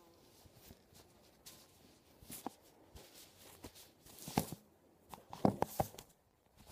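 Phone-handling noise: fingers brushing, rubbing and tapping against the phone, scattered soft rustles and clicks, with a quick run of sharper knocks about five and a half seconds in.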